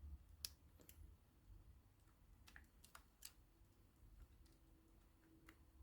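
Near silence with a few faint, scattered clicks and taps from handling a PS4 controller's plastic shell and ribbon cable as the cable is inserted.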